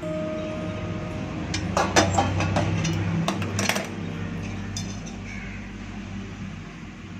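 A short run of dishware clinks and knocks, loudest about two seconds in and again a little before four seconds, over faint background music.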